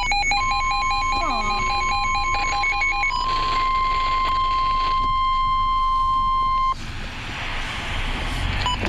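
Midland WR-100 weather radio sounding its warbling alert beeps for about three seconds, over the NOAA Weather Radio 1050 Hz warning alarm tone, a steady single pitch that signals a warning is about to be read. The alarm tone cuts off sharply about two-thirds through, leaving broadcast static hiss.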